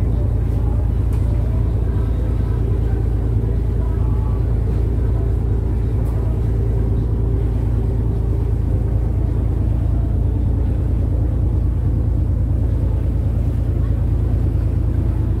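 A tour boat's engine running steadily under way, a deep even drone.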